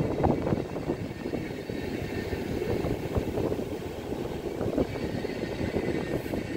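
Train of passenger coaches rolling past: a steady rumble broken by irregular wheel knocks and clatter on the track.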